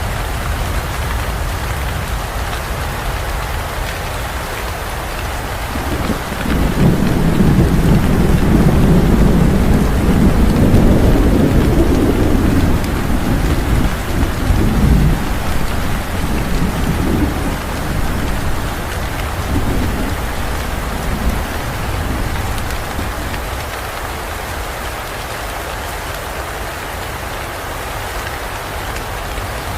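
Steady heavy rain falling, with a long roll of thunder that swells in about six seconds in, stays loudest for about nine seconds, and rumbles away over the next several.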